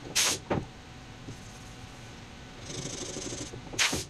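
Sandpaper and a sanding disc being handled: short papery rustles and scrapes, the loudest just after the start and just before the end, over the steady low hum of a shop fan.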